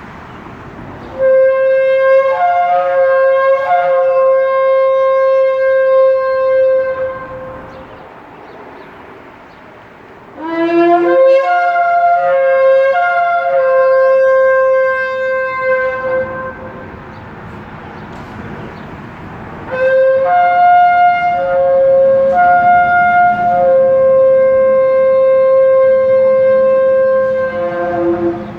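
Kudu-horn shofar blown in three long blasts of several seconds each. Each blast holds a steady low note that breaks up to a higher tone and back. The second blast slides up into its note.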